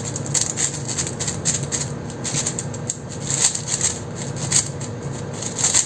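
A 5x5 speed cube being turned by hand: a quick, irregular run of plastic clicks and clacks as the layers are twisted.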